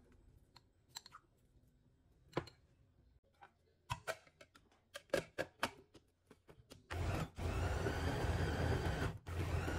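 Plastic clicks and knocks as the lid and motor head of a small electric food chopper are fitted onto its bowl, then the chopper's motor starts about seven seconds in and runs steadily, blending pineapple and other fruit chunks, with two brief stops.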